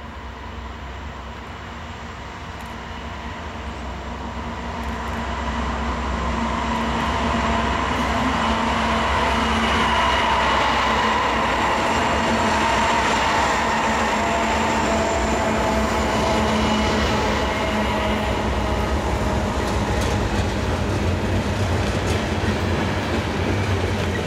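Four Norfolk Southern diesel locomotives hauling a loaded grain train approach and pass close by under power, getting steadily louder over the first several seconds, with their pitch falling as they go past about ten seconds in. Then the loaded covered hopper cars roll by with a steady noise of steel wheels on the rails.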